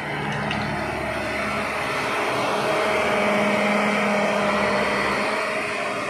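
Engine of heavy road-construction machinery running steadily, growing a little louder about halfway through and easing off near the end.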